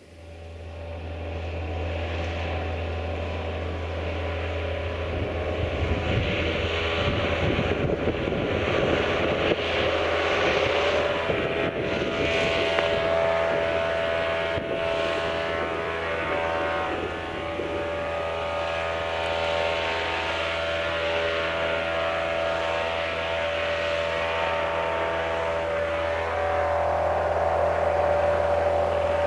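M62 'Sergei' diesel locomotive's Kolomna 14D40 two-stroke V12 engine running under load as it slowly hauls a loaded freight train: a steady deep drone with a higher engine note above it that grows louder near the end.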